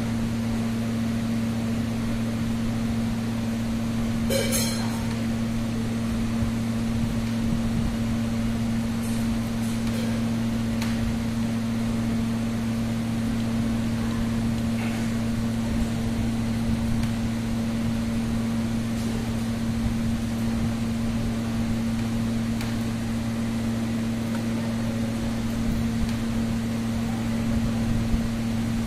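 A steady machine hum with two held low tones and no change in pitch, and a brief sharp sound about four and a half seconds in.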